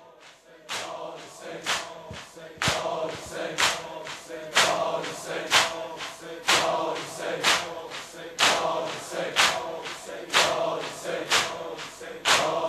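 A crowd of male mourners chanting a Persian lament in unison. Sharp slaps come about once a second, the rhythmic chest-beating (sineh-zani) that keeps time in a Shia noheh.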